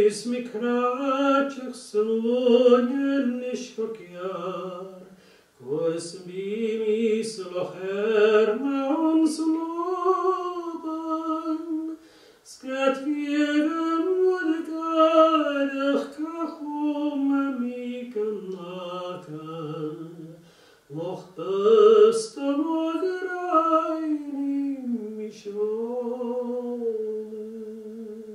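A man singing a slow song unaccompanied, in long phrases with short pauses for breath between them, ending on a long held note.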